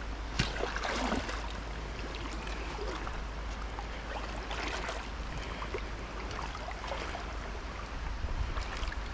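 River water flowing and lapping close by, with a few brief sharper splashes about a second in and again around five seconds in.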